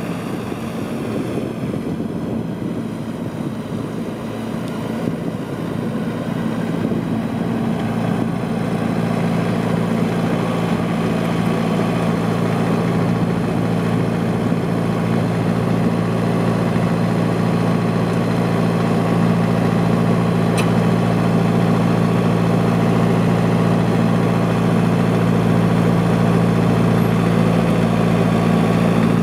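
Branson 4720 compact tractor's diesel engine running steadily with no revving, growing gradually louder over the first half and then holding.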